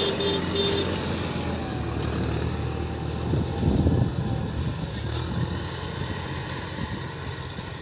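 Massey Ferguson 5710 tractor's diesel engine running steadily under load as it pulls a 28-disc intermediate disc harrow through the soil, with a brief louder rush of noise about four seconds in.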